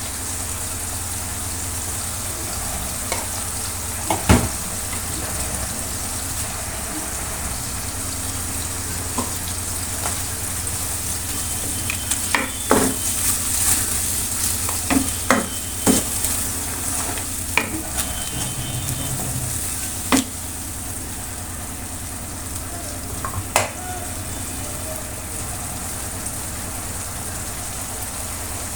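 Chicken kababs frying in oil with a steady sizzle, with sharp knocks and clicks scattered through it.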